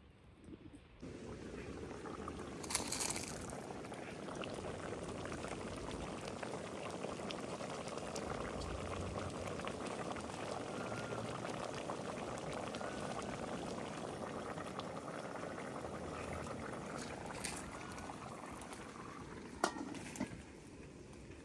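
A pot bubbling steadily at a boil, with a few sharp knocks, the loudest about three seconds in and near the end.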